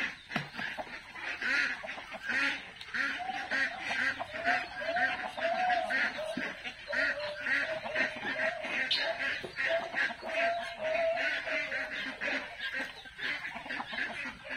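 A flock of chickens clucking continuously, many short calls overlapping with no break.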